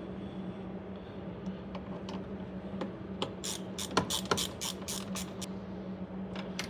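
Ratchet wrench on an extension clicking in a quick, even run of about five clicks a second for two seconds or so, from about halfway in, as the fuel pump's mounting screws are driven. A steady low hum runs underneath.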